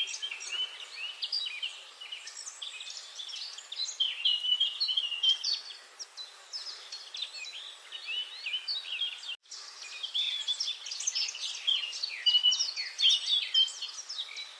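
Several small birds chirping together in a dense chorus of short, high chirps at different pitches, with a momentary break in the sound about nine seconds in.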